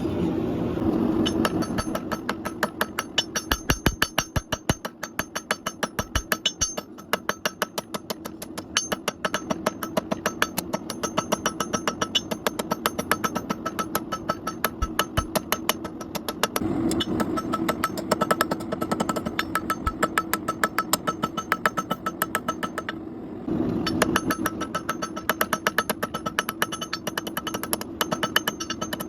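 Rapid, evenly spaced hammer blows on metal, ringing slightly, over a steady machine hum; the blows pause briefly twice.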